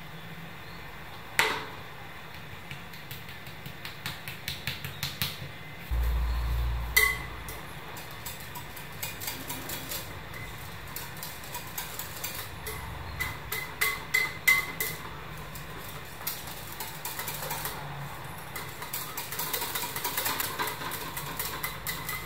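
A plastic sieve knocking and tapping against a glass bowl as cake flour is sifted, with one dull low thump about six seconds in. After that comes a wire whisk clicking and scraping fast against the glass bowl as the flour is whisked into the batter.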